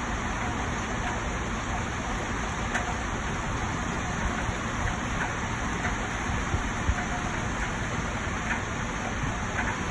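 Heavy rain falling steadily on trees and foliage, with scattered sharper taps of single drops.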